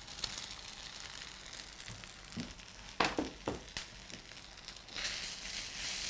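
Cooked rice going into a hot pan of vegetables and tofu, with a faint sizzle and a few light knocks about three seconds in. From about five seconds a wooden spatula stirs and tosses the rice and the sizzling gets louder.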